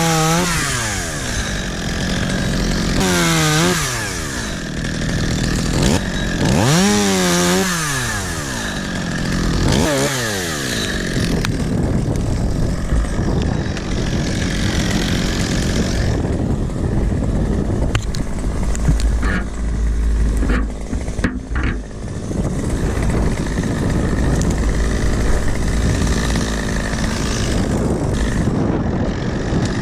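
Two-stroke chainsaw revving up and down about four times in the first ten seconds, then running more evenly, with a few sharp clicks around two-thirds of the way through and the engine starting to rev again at the very end.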